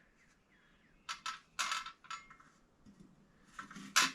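Light metallic clicks and clinks from handling steel bicycle fenders and their stays: a few around a second in and a sharper one near the end.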